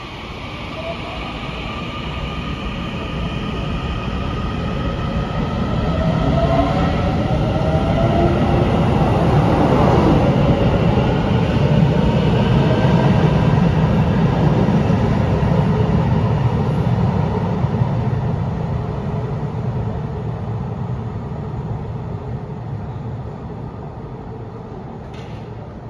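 Taiwan Railway EMU900 electric commuter train pulling out and accelerating away: traction motors whine, rising in pitch as it gathers speed, over a rumble of wheels on rails that grows loud as the cars pass and then fades as the train leaves.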